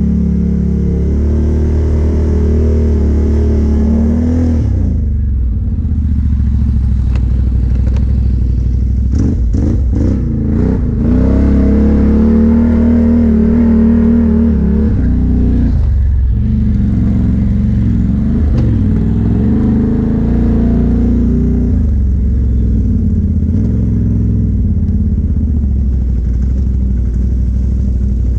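ATV engine running and being throttled on a trail, its pitch rising and falling. The throttle eases off briefly about five seconds in and again about halfway through, with a few short knocks in between.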